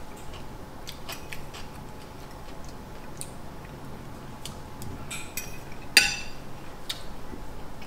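Forks clicking against plates during a meal: scattered light clicks, with a louder ringing clink about six seconds in.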